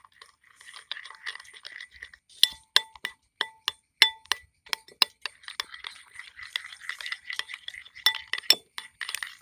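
A utensil clinking against a bowl while egg is whisked with chopped onion and chilli: repeated sharp clinks, irregular at first, the bowl ringing briefly after the harder strikes.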